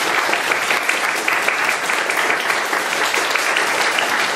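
Audience applauding steadily, with many hands clapping.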